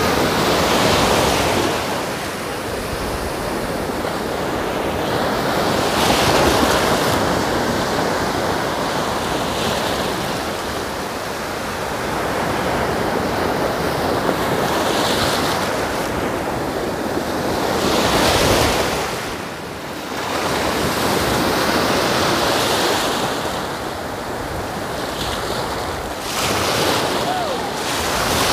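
Sea surf breaking on a sandy shore: a steady rush of foaming waves that swells louder every few seconds as each wave breaks and washes up the beach.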